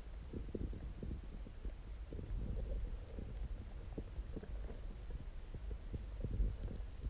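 Underwater pond ambience picked up through an action camera's waterproof housing: a low steady rumble with scattered soft clicks and ticks, and a faint high whine.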